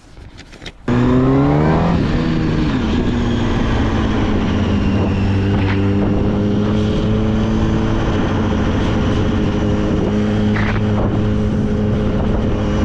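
2006 Yamaha R1's inline-four engine, with its stock exhaust, starting about a second in. It revs up over about a second, then holds a steady engine speed.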